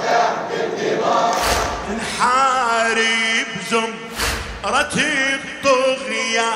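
A hall full of men chanting a Shia latmiya mourning refrain, with a loud unison chest-beating thump about every two and a half seconds, twice here. About two seconds in, a single male reciter takes over, singing the next line solo into a microphone.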